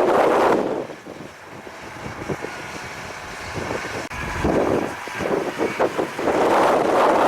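Blizzard wind gusting against the microphone. It drops off about a second in and builds back up over the second half, and a vehicle engine runs underneath during the lull.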